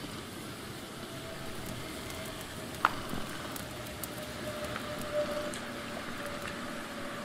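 Wood fire crackling under a pot of steaming water: a steady hiss with scattered small crackles. A sharp click about three seconds in, and a faint steady tone from about a second in.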